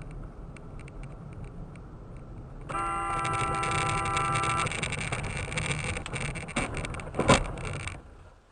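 Car cabin engine and road noise. A car horn sounds once, held steady for about two seconds from about three seconds in, and a single loud thump comes near the end.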